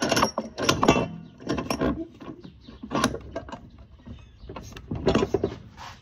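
Irregular metallic clanks and rattles, several separate knocks with short pauses between, from a steel exhaust pipe being handled and shifted in a bench vise.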